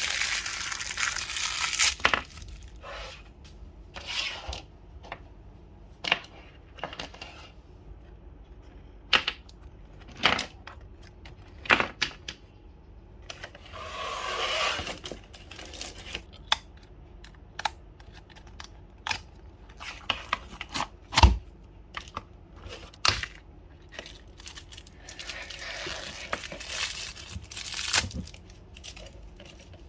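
Packaging of surprise toys being torn and crinkled open in several bursts, between scattered sharp clicks and taps as the pieces are handled.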